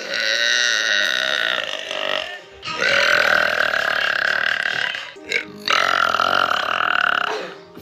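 A young woman belching three long, loud burps, each lasting about two seconds, with short pauses between them.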